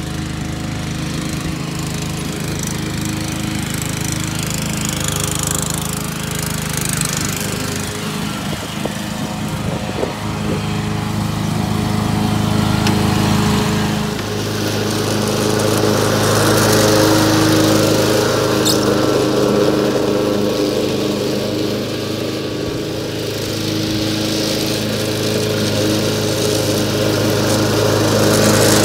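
Small petrol lawn mower engines running steadily, changing to a different engine note about halfway through.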